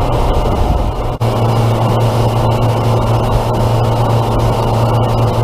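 Outboard motor running at speed on a fishing boat, with rushing water and wake spray and wind noise on the microphone. A steady low engine hum comes in strongly about a second in, after a brief dip.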